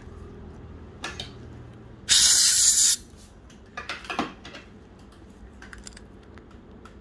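Dental three-way air-water syringe giving one short hissing blast of just under a second, about two seconds in. A few softer, brief sounds come before and after it.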